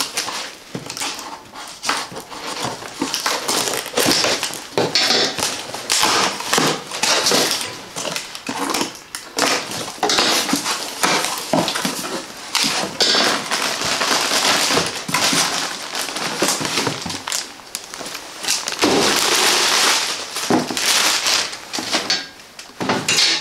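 Cardboard box being cut open and unpacked: scissors slicing through packing tape, then cardboard flaps scraping and plastic wrapping crinkling in irregular rustles and crackles.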